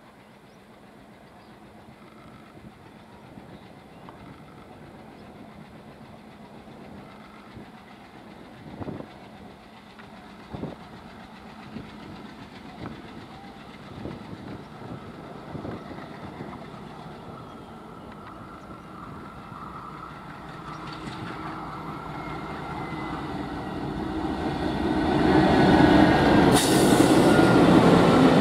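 Twin WDM-3D ALCO diesel locomotives hauling a loaded tanker freight, their engines and the train growing steadily louder as they approach and then running loud as they pass close by. A few single knocks sound in the middle as the train draws nearer.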